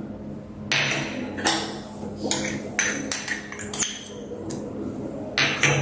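Steel spoon and small steel cups knocking and scraping against a glass mixing bowl as chopped vegetables are tipped into egg batter: a string of sharp clinks a second or so apart.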